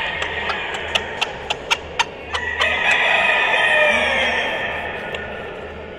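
Gamecock crowing: one long call starting about two and a half seconds in, after a run of sharp clicks.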